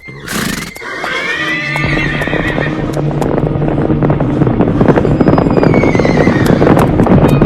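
A horse whinnying once, a call of about two seconds that rises and falls, just after a short noisy burst. Music with a steady beat comes in under it and grows louder.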